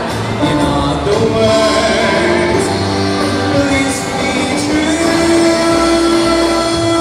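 A man singing into a microphone over an instrumental backing track. He ends on one long held note over the last couple of seconds.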